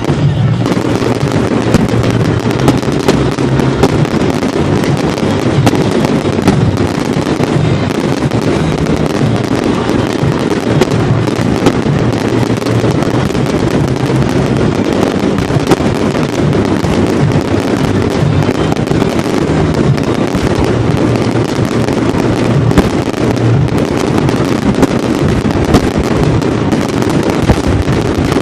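A fireworks display going off without a break: a dense run of bangs and crackling, with a steady musical soundtrack playing underneath.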